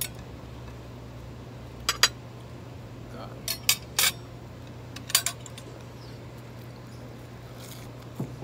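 Metal fork and spoon clinking against a ceramic bowl of seafood pasta while eating: about eight short, sharp clinks scattered through, some in quick pairs.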